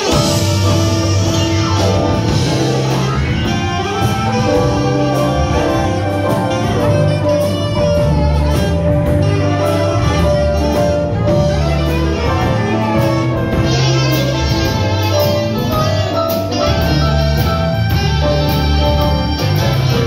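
Live big band playing a swing-style jazz number without vocals: a saxophone and trombone section holding long notes over drums and bass.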